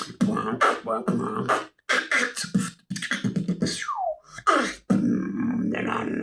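Beatboxing with chewing gum in the mouth: a fast run of mouth clicks and percussive hits, broken by two short pauses, with two falling vocal sweeps about two-thirds of the way through.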